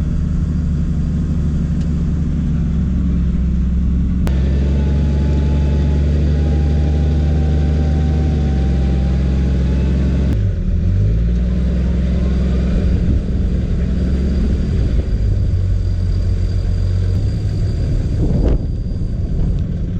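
Toyota 80 series Land Cruiser engine running steadily at low revs, its note shifting about halfway through, with a faint thin whine for a few seconds in the first half.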